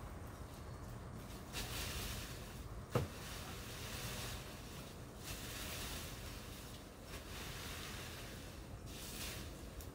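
Intermittent rustling over a low rumble, with one sharp knock about three seconds in.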